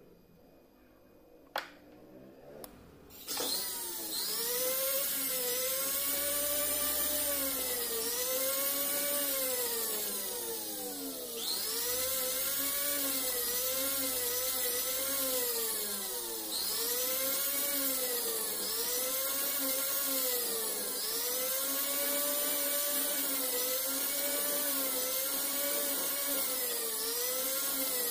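Jeweller's rotary tool with a rubber polishing bit starting up about three seconds in, after a couple of sharp clicks, and whining steadily as it polishes a silver ring. Its pitch dips and rises again every second or two.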